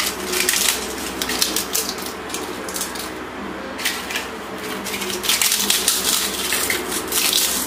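Crisp fried pappadams being snapped and crumbled by hand into a frying pan: a dense, irregular crackling of many small brittle snaps.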